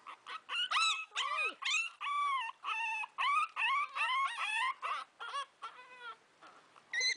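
Shih Tzu puppies whining and yipping in a rapid string of short, high-pitched cries, two to three a second, growing quieter near the end.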